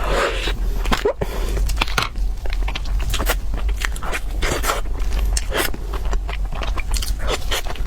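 Close-up sound of a person biting and chewing crunchy food: dense, irregular crisp crackles and crunches.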